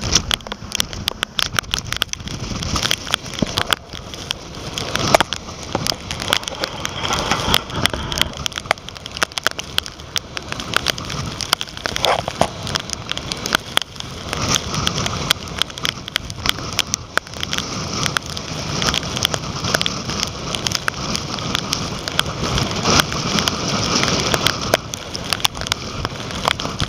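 Storm-force wind gusting straight into a waterproof camera's microphone: a loud, uneven rushing with constant crackling, and rain and spray pattering on the camera housing.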